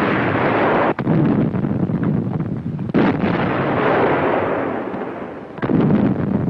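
Artillery fire from a field gun: three heavy blasts about two seconds apart, each starting sharply and dying away slowly.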